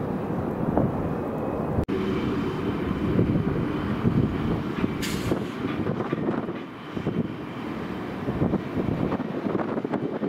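Low, uneven rumble of a jet airliner's engines on the runway, with a brief drop-out about two seconds in and a short hiss about five seconds in.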